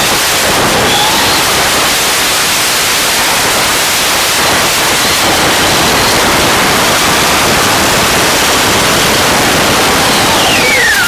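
Loud steady hiss, like static, with the faint whine of an RC car's electric motor gliding up and down through it. The whine falls in pitch near the end.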